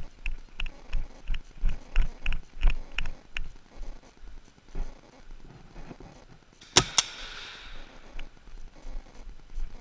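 Quick footfalls of a player on the move, then two paintball marker shots about a fifth of a second apart, the loudest sounds, each followed by a short echo in a large indoor space.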